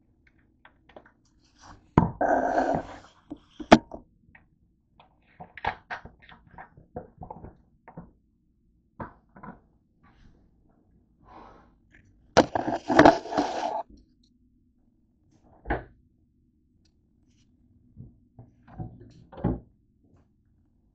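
Objects being handled on a kitchen counter: scattered knocks and clicks, with two short bursts of rustling, crackling noise, one about two seconds in and a longer one about twelve seconds in.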